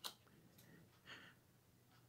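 Near silence: quiet room tone, with a brief soft click at the very start and another faint short sound about a second in.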